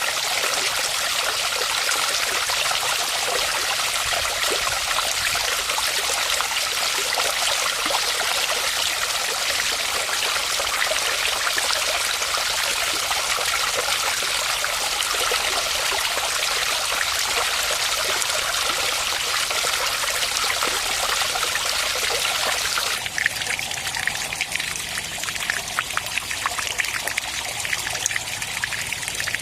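Water from a small built waterfall pouring steadily into a fish pond. Near the end it changes abruptly to a lighter trickle with separate splashes and drips.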